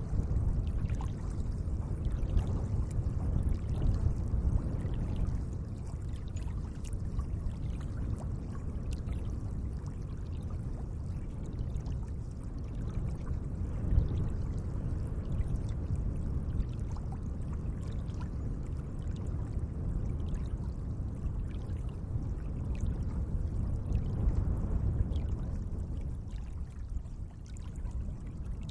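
Gentle lake water moving and lapping: a steady low rush of water with many small splashes and drips.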